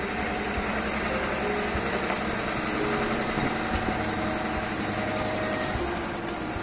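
Diesel engine of an old TATA Mercedes-Benz LP 312 tow truck idling steadily.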